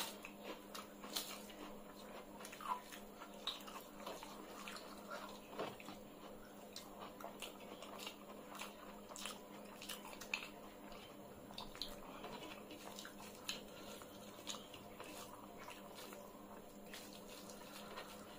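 Two people eating rice and curry with their hands: faint wet chewing and mouth sounds, with many small scattered clicks. A faint steady hum runs underneath.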